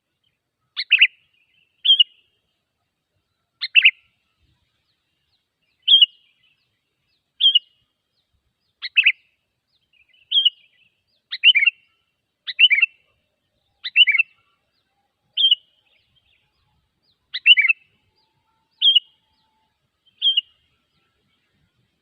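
Sooty-headed bulbul calls from a lure recording: short, sharp notes, some dropping in pitch, repeated about once every second or second and a half on a silent background. The calls stop shortly before the end.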